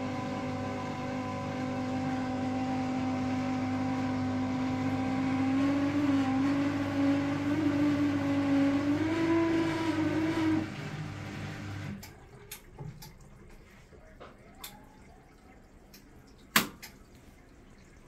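Front-loading washing machine's drain pump running with a steady hum while water drains. Its pitch wavers as the tub empties, then it stops about twelve seconds in. A few light clicks follow, with one sharp click near the end.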